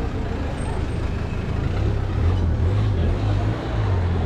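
City street traffic: motor vehicles running close by, a steady low rumble.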